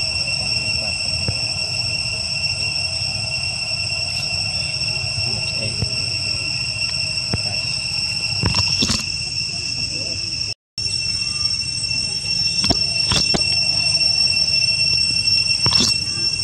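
Steady, high insect drone of a tropical forest chorus, holding several fixed pitches, with a few short clicks or rustles in the leaf litter in the second half. The sound drops out for a moment just after ten seconds in.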